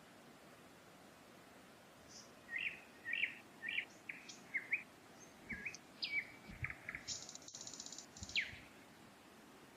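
A songbird sings a varied run of short chirps and whistles, starting about two seconds in and ending in a fast trill, over the faint steady rush of a forest stream.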